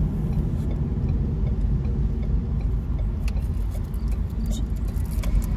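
Steady low road and engine rumble of a moving car, heard from inside the cabin.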